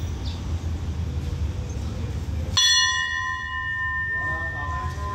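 Low, steady rumble of the waiting train, then a single bell stroke about two and a half seconds in, ringing on with several clear tones that slowly fade. It is typical of the bell that signals a train's departure at a Thai railway station.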